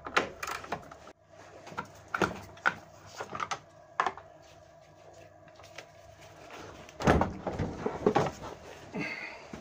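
Irregular clicks and knocks of a socket wrench and a metal bracket being worked loose, with a louder clatter about seven seconds in as the bracket holding the wiring harness comes free.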